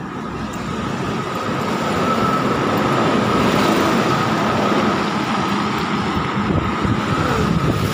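Heavy trucks passing close by on a busy road, their engines and tyres rumbling. The noise swells over the first few seconds, with a steady high whine running through it.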